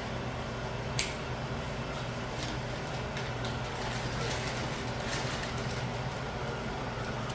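Light clicks and taps of small tablet parts being handled during reassembly, with one sharper click about a second in, over a steady low hum.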